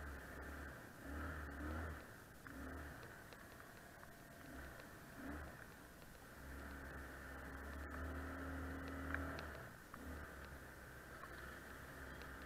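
ATV engine running while riding a bumpy dirt track. Its note rises and falls with the throttle and holds steady for a few seconds in the middle, over a low rumble that comes and goes.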